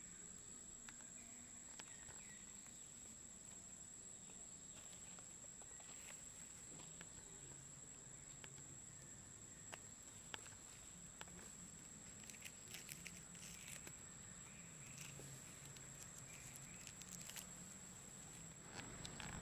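Faint outdoor ambience: a steady high-pitched insect drone with scattered soft ticks and rustles of dry leaf litter as macaques move about, a small cluster of them around twelve to fourteen seconds in.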